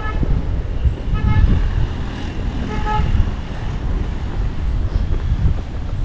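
Three short horn toots in the first three seconds, over a low, uneven outdoor rumble.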